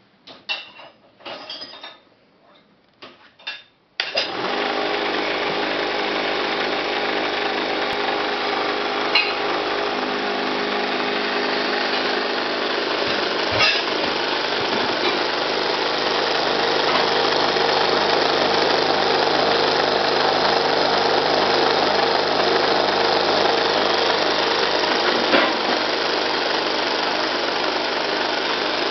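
A few knocks and clicks, then about four seconds in a Cameflex film camera starts up on its converted 12-volt DC motor and runs steadily at 24 frames per second: an even mechanical whir with several steady tones, holding constant speed, with an odd faint click now and then.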